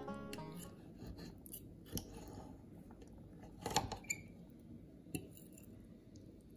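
Knife and fork cutting a soft baked stuffed aubergine on a ceramic plate: a few light clicks and scrapes of metal on the plate, the loudest a little past halfway.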